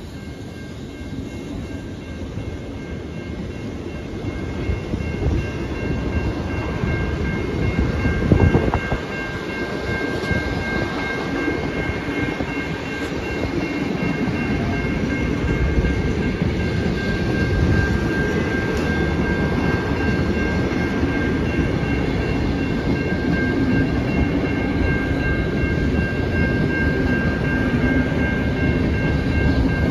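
Heritage train's carriages rolling past a level crossing, wheels rumbling and clacking over the rails and growing louder, with a louder clunk about eight seconds in. The crossing's warning bell rings steadily over the passing train.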